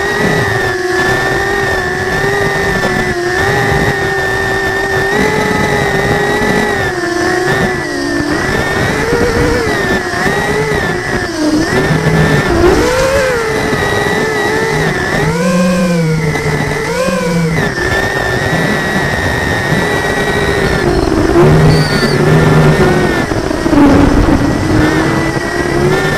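Multirotor drone's motors and DAL 6045 tri-blade propellers whining, recorded from the drone itself. The pitch rises and dips with throttle changes, with two quick sharp swings about two thirds of the way in.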